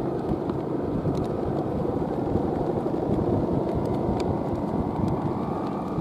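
Strong sea wind buffeting the microphone: a steady low rumble, with a faint steady high tone running through it.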